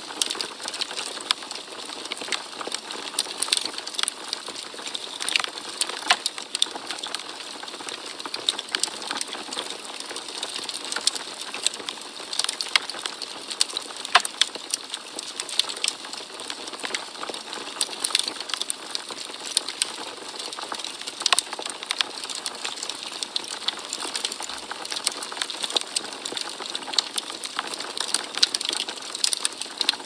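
Wood logs burning in a fireplace, crackling with frequent irregular sharp pops over a steady soft hiss.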